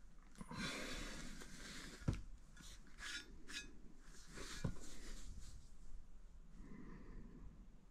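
Faint handling noise of a steel body-armor plate being taken out of its packaging: rustling and rubbing with scattered light clicks, two of them sharper knocks about two and four and a half seconds in.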